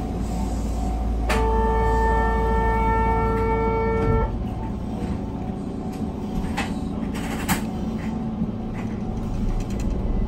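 A train horn sounds one steady note for about three seconds, starting about a second in, over the low rumble of a Keihan Keishin Line train running.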